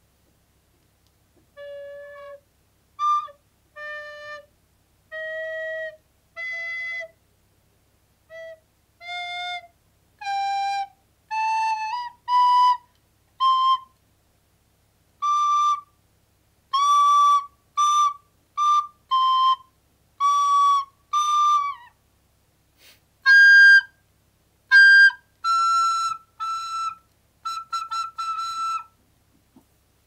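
Soprano recorder played one note at a time in halting beginner practice, each note separated by a short pause. The notes climb step by step at first, then hover higher, with a few quick short notes near the end.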